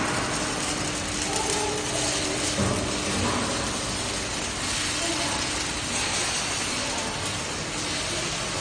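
Steel fabrication workshop din: a steady hiss with crackling and mechanical clattering, with arc welding on a long steel excavator boom at the start and a low steady hum for the first few seconds.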